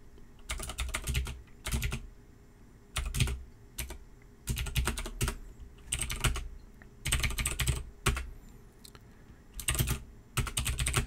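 Typing on a computer keyboard in short bursts of keystrokes with pauses between them.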